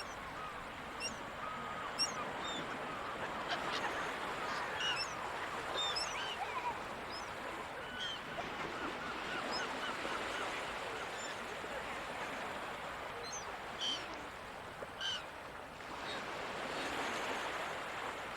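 Gulls calling over the ocean: many short, bending cries from several birds, some overlapping, over a steady wash of sea noise that swells near the end.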